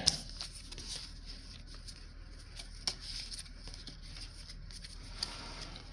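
Pokémon trading cards being handled: faint rustling with a few light clicks.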